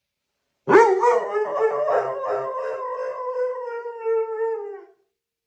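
A dog howling: one long howl of about four seconds, starting a little under a second in. It wavers at first, then holds steady and drops slightly in pitch as it fades out.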